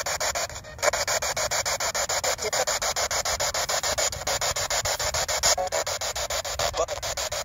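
P-SB7 Spirit Box sweeping down the FM radio band, its speaker putting out a continuous hiss of radio static chopped into short even pieces about ten times a second as it jumps from station to station.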